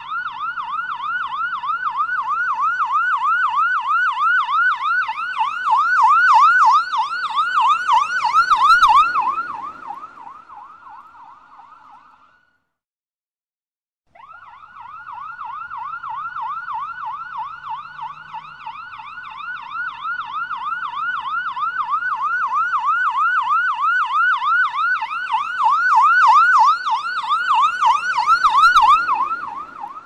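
Police siren in a fast yelp, its pitch sweeping up and down about three times a second, swelling louder and then fading away. About halfway through it stops for a second or two of silence, then starts again, swells once more and begins to fade near the end.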